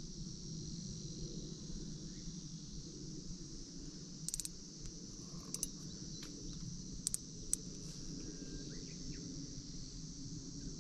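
Steady high-pitched chirring of insects, with a low rumble underneath. A few short sharp clicks sound in the middle stretch.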